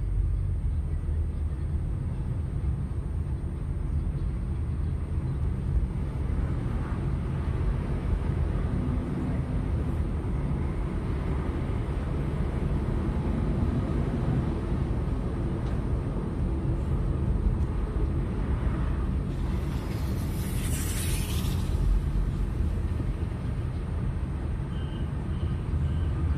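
Steady low rumble of a car's engine and tyres heard from inside the cabin while driving. About three-quarters of the way through, a brief hiss swells and fades.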